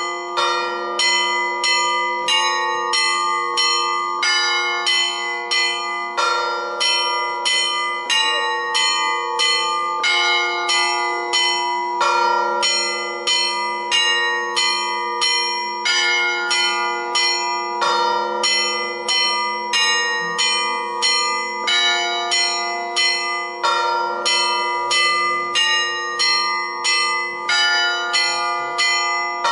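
Church bells ringing continuously in quick, steady strokes: several bells of different pitch struck in an ever-changing pattern, each stroke ringing on into the next.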